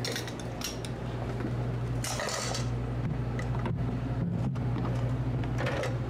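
Kitchen handling sounds: a stainless steel bowl and dishes clinking and being moved, with a couple of short scraping rustles, over a steady low hum.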